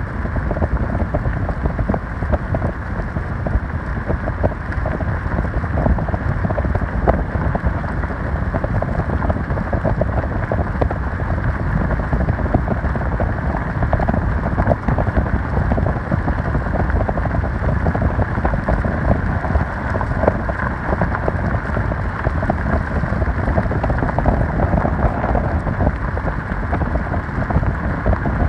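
Steady rushing of spring meltwater runoff flowing, an even noise with small crackles throughout.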